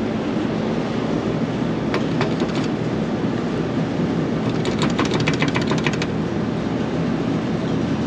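Rooftop air-conditioning unit running with a steady mechanical hum. A quick run of clicks comes about halfway through.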